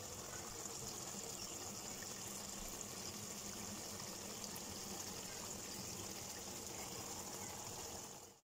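Beef kosha, a spiced beef curry in oily onion gravy, simmering in a pan: a steady, even sizzling hiss that cuts off suddenly near the end.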